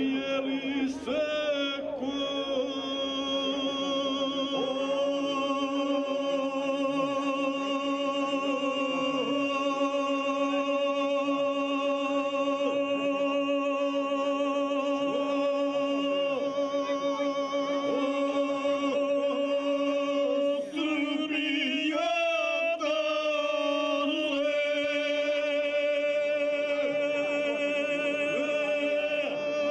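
Two men singing izvika, a traditional Serbian two-part folk singing style, unaccompanied. They hold long drawn-out notes with a wavering vibrato. About two-thirds of the way in they break off and start a new phrase with shifting, ornamented pitches before settling into another long held note.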